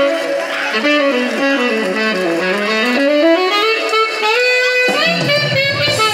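Tenor saxophone with a Barkley MS8 mouthpiece, amplified through a PA, playing a quick stepwise run that falls to a low note and climbs back up to a held note. A deeper backing part comes in near the end.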